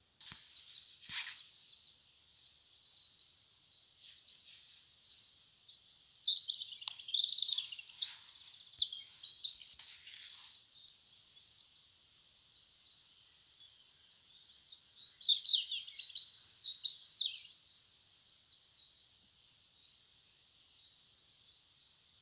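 Small birds chirping and singing in quick, high twittering phrases, busiest about six seconds in and again about fifteen seconds in.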